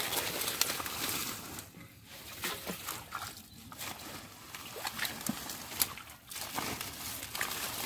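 Shallow muddy water sloshing and splashing as someone wades through it barefoot and pulls up water hyacinth. The plants' stems and leaves rustle and crackle, with a few brief lulls.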